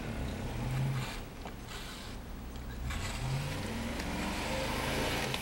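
A stuck snowplow truck's engine revving as the driver keeps pressing the gas, its wheels failing to get it moving through deep snow. The engine pitch rises twice, and a hiss grows louder in the second half.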